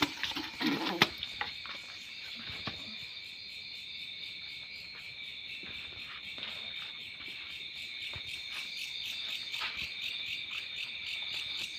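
Crickets chirping in a steady, high, rapidly pulsing trill, with a few brief knocks in the first second.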